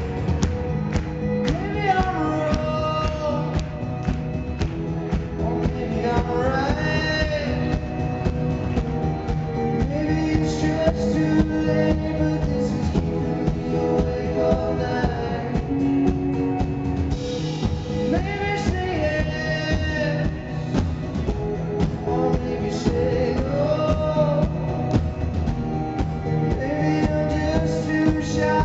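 Live band: a male lead singer over acoustic guitar, bass guitar and drums keeping a steady beat.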